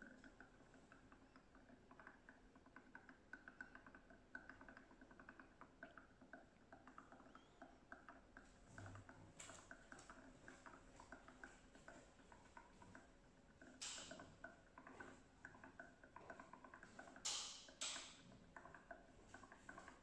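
Faint, quick patter of small ticks and bubbles from black ink draining out of an upended bottle into the Epson EcoTank L3156's ink tank as air bubbles up into the bottle. A few brief louder hisses come in past the middle, two of them close together near the end.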